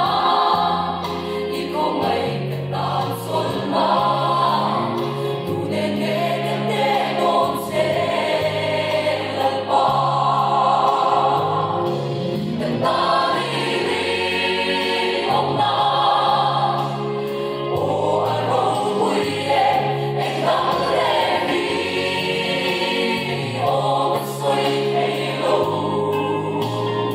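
Mixed church choir of women's and men's voices singing a hymn together in parts, continuously.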